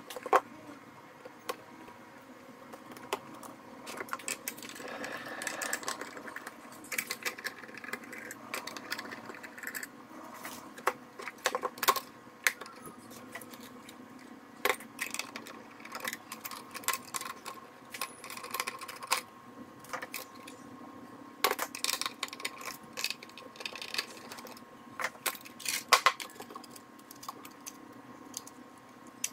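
Irregular clicks, knocks and light clinks from a thermal receipt printer being taken apart by hand: plastic case parts and the metal print mechanism being handled, and wire connectors being worked loose from the circuit board. A faint steady hum runs underneath.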